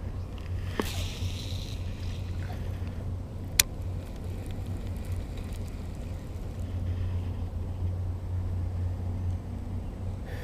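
Low steady rumble with faint water sounds on a paddleboard, a short swish about a second in as a fishing rod is swung to cast, and one sharp click about three and a half seconds in.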